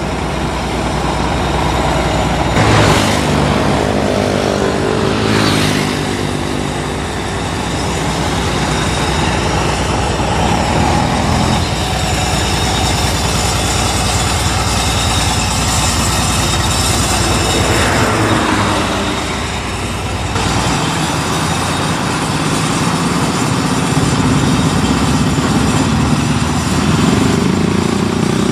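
Heavy diesel engines running: a prime-mover truck pulling a lowboy trailer and a tracked rice combine harvester. The engine sound changes abruptly a few times.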